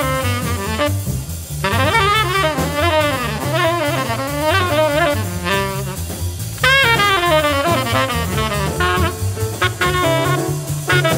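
Jazz quartet recording: a tenor saxophone plays fast, winding runs over double bass and drum kit, breaking off briefly about a second in and again past the middle before starting a new phrase.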